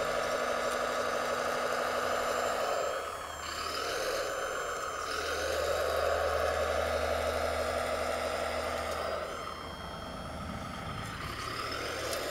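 Electric motors of a radio-controlled scale CAT 963B track loader whining as it drives and works its bucket in dirt. The whine rises as each move starts and falls away when it stops, twice, over a low steady hum.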